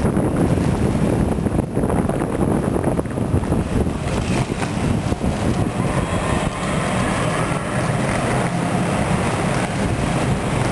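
Inline skate wheels rolling on the concrete deck of a parking garage, a steady rough rumble, with wind buffeting the microphone as the camera moves along.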